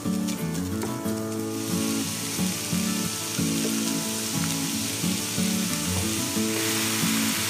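Beef mince sizzling in sesame oil in a hot frying pan. The sizzle grows louder about two seconds in and again near the end.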